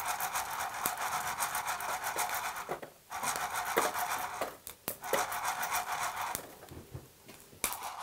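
Rapid, rhythmic rasping strokes: something rubbed or scraped back and forth. The strokes stop briefly about three seconds in and fade low near the end before starting again.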